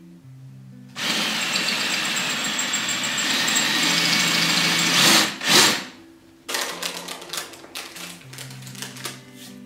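Electric drill running for about four seconds, drilling into the wall, ending in two short bursts of the trigger; then a run of light taps and knocks.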